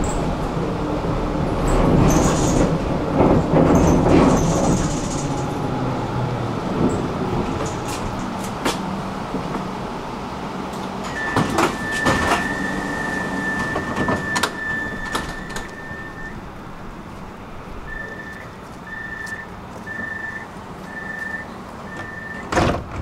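Tram rumbling as it slows into a stop, then a door signal: a steady high tone for about five seconds, followed by a string of short beeps about a second apart. A sharp knock comes just before the end.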